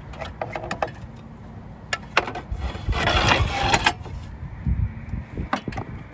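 Slate roofing being worked by hand with metal tools: sharp taps and clicks of steel on slate and wood, with a louder grating scrape of slate for about a second and a half near the middle.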